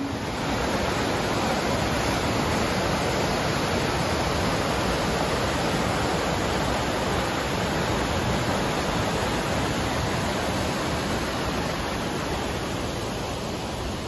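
Mountain river water rushing over rocks and down a small cascade: a steady, unbroken rush.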